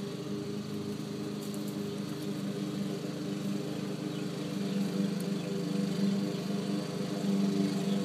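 A steady, low, engine-like drone that grows a little louder about five seconds in.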